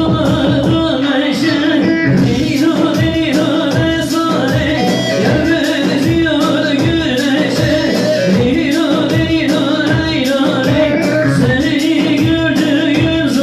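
Man singing a Turkish halay folk song into a microphone, amplified through a PA speaker, over instrumental backing with a steady dance beat.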